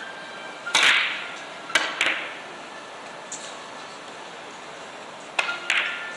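Carom billiard balls clicking as a three-cushion shot is played: a sharp click a little under a second in, two more about a second later, then two more close together near the end.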